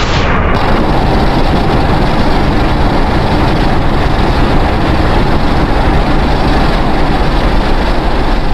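A custom Godzilla sound effect: one long, loud, steady rushing noise with a deep rumble underneath, without any clear pitch.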